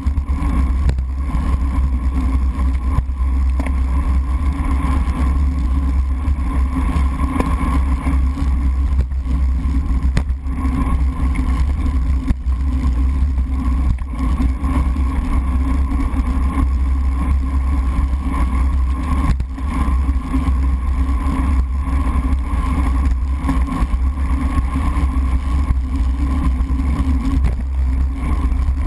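Steady low rumble of wind and tyre-on-wet-road vibration, muffled through a bike-mounted GoPro's sealed waterproof housing while a road bike rides at race speed.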